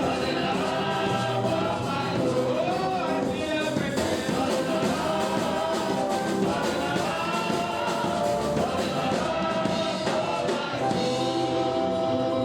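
Gospel music with singing voices over instruments, steady throughout.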